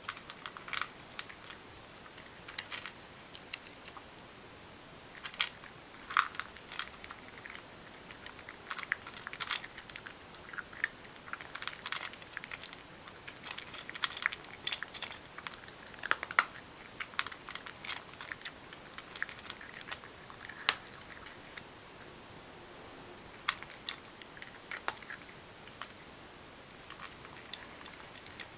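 Ragdoll cat crunching dry kibble: crisp, irregular crunches in clusters, with short pauses between mouthfuls.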